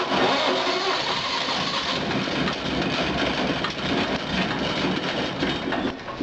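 Air-cooled Wisconsin engine of a Bush Beaver wood chipper running on a cold start, a steady, dense engine sound.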